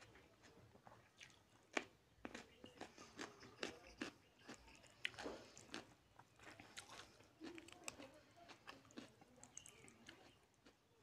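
Quiet, close-miked mouth sounds of eating chicken curry and rice: a dense run of short wet clicks and smacks from chewing, the sharpest about two seconds in.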